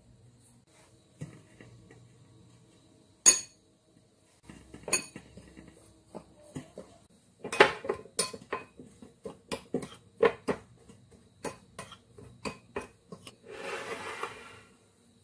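Metal spoon clinking and scraping against a ceramic bowl while stirring dry flour and sugar. There is one sharp clink about three seconds in, then a run of quick clinks, and a short scraping sound near the end.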